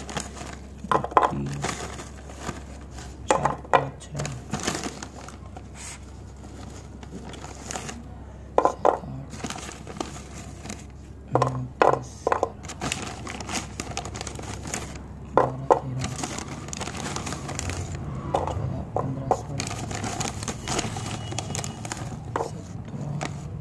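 Foil snack packet crinkling and dry, crisp mathri crackers being tipped out and shuffled on a paper plate, in scattered clusters of short clicks and knocks. A low steady hum runs underneath.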